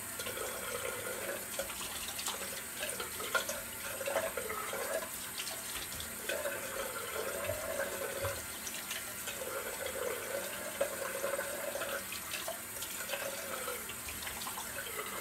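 Bathroom tap running into a sink while water is splashed onto the face with the hands, rinsing off shaving lather after a shave.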